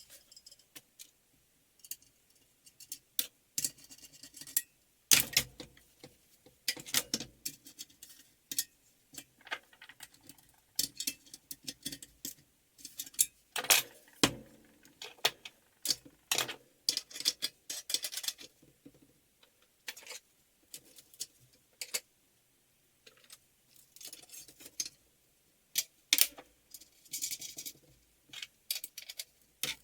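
Irregular metallic clicks, clinks and knocks of tools and metal parts being handled while the homemade exhaust muffler is assembled and fitted, with a few louder clattering bursts.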